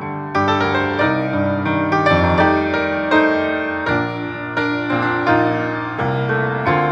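Piano playing a slow piece, chords struck roughly every half second to a second and left to ring.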